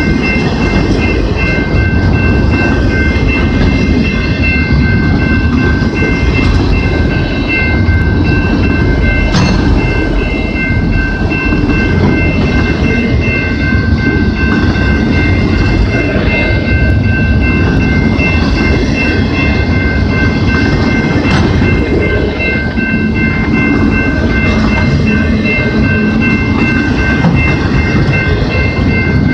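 A long freight train of autorack cars rolling past close by: a steady loud rumble with wheel clatter on the rails. A steady high-pitched ringing tone sits on top of it.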